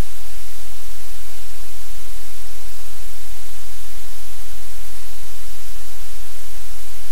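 Loud, steady static-like hiss with a low hum underneath, unchanging throughout, with no distinct sounds standing out above it.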